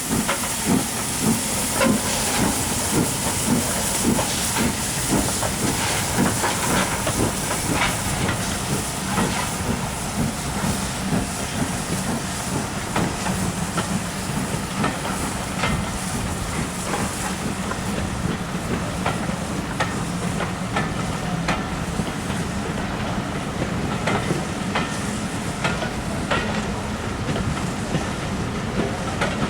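Steam locomotive working a train, its exhaust beats about two a second at first, then quickening and running together over a steady hiss of steam.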